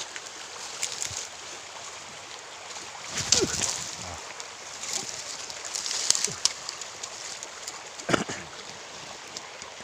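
Small stream running steadily, with a few brief sudden sounds over it, the loudest about three seconds in and another about eight seconds in.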